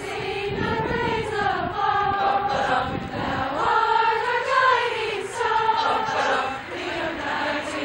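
A group of voices singing together in a choir, holding drawn-out sung notes that rise and fall in pitch.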